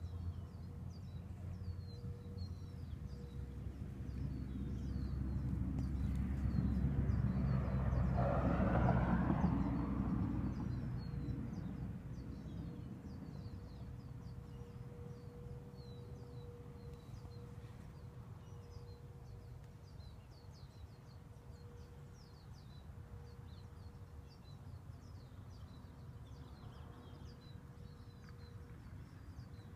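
Small birds chirping repeatedly in short, quick calls, over a faint steady hum. A low rumble builds, peaks about nine seconds in, then fades.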